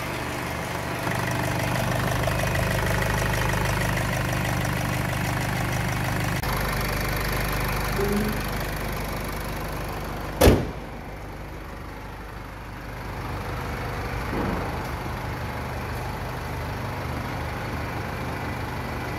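Land Rover Freelander 2 engine idling steadily, with one sharp bang about halfway through as the bonnet is shut. After the bang the engine sounds more muffled.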